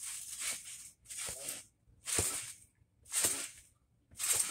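Regular swishing bursts, about one a second, each with a faint low thump, from someone bouncing on a trampoline.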